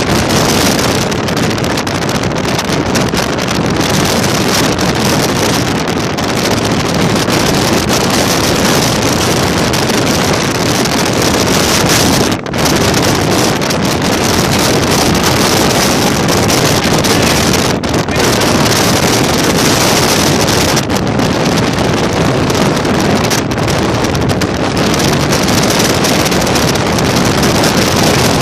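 Strong wind buffeting the microphone: loud, steady wind noise with a brief lull about twelve seconds in.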